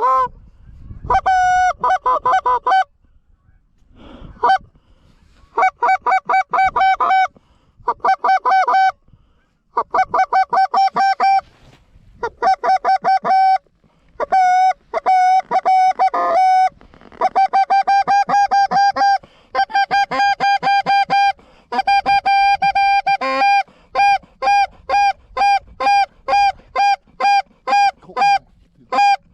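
Canada goose calls blown by hand: loud runs of short honks and clucks on a near-constant pitch, in bursts with short pauses, ending in a steady string of fast clucks about three a second.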